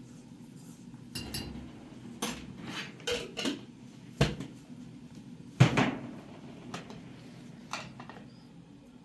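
Kitchenware being handled and set down on a stainless steel counter: a string of about eight clinks and knocks of cups, glasses and dishes, the loudest about four and five and a half seconds in.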